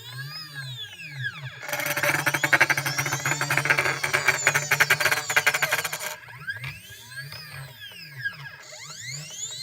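A CNC machine's stepper-driven axes running. The motor whine sweeps up and then down in pitch as an axis speeds up and slows. From about 2 s to 6 s there is a loud grinding rattle, the fault noise the owner is chasing with the drivers set to 0.3 V reference.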